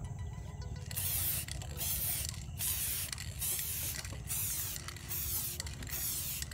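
Aerosol can of Samurai black spray paint being sprayed in a series of short passes, about seven or eight bursts of hissing starting about a second in.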